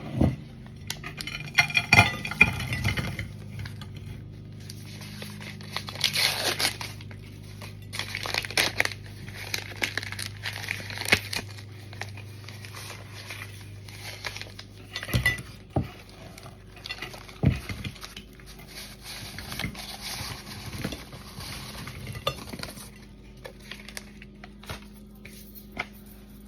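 Irregular crinkling and clinking as cornstarch bricks, their packaging and a dish are handled, with a few sharp knocks.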